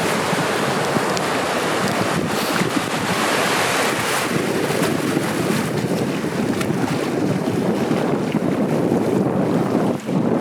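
Ocean surf washing and breaking, with wind blowing across the microphone.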